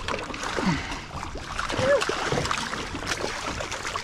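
Water splashing as a hooked pink snapper thrashes at the surface and is scooped into a landing net beside the boat.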